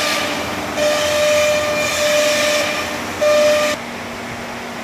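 CNC router spindle cutting parts out of a laminated sheet, a steady whine over a loud rushing noise of the cut and the dust hood. About four seconds in the cutting noise and whine stop as the pass finishes, leaving a lower steady machine hum.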